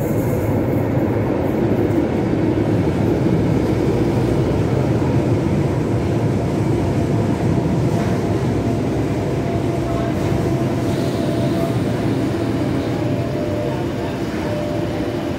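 Tyne and Wear Metro train running into an underground station platform, a steady heavy rolling noise that swells in the first few seconds and then eases. About two-thirds of the way through, a steady whine joins in as the train slows to a stop.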